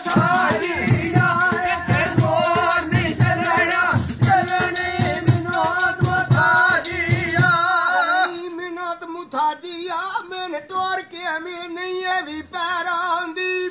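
Punjabi mahiya folk singing: a wavering sung melody over a steady drum beat, the drums dropping out about eight seconds in and leaving the voice over a steady held note.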